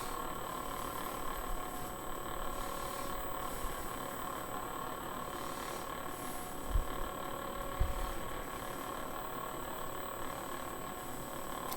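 Budget lightsaber's speaker playing the steady idle hum of its Darth Vader sound font while the blade is lit, with two low thumps about seven and eight seconds in.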